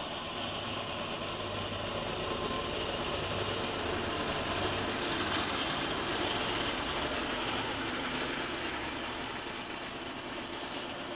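Norfolk Southern diesel freight locomotives passing, their engines running with a steady low hum under a wider rumble. The sound builds to a peak about midway and then eases off.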